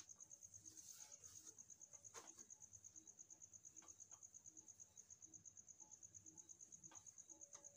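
Near silence, with a faint, steady high-pitched chirping, like a cricket, pulsing evenly about six times a second. A cloth duster wipes a whiteboard softly, with a few faint ticks.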